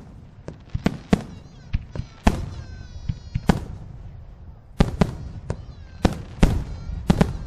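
Aerial fireworks shells bursting: a string of about a dozen sharp bangs at irregular intervals, some in quick pairs, each dying away in a short echo.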